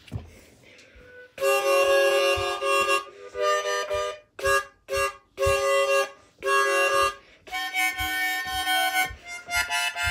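Small harmonica being played, starting about a second and a half in: a run of chords, several notes sounding together in each, broken into separate blows with short gaps between them and changing chord from one to the next.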